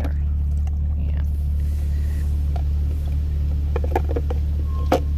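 Steady low engine rumble heard from inside a van's cabin, with a few small clicks and one sharp tap near the end.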